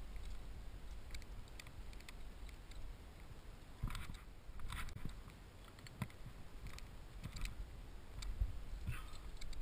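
Wind rumbling on a GoPro's microphone, with scattered light clicks and scrapes of a climber moving up rock and a few louder scuffs about four and five seconds in.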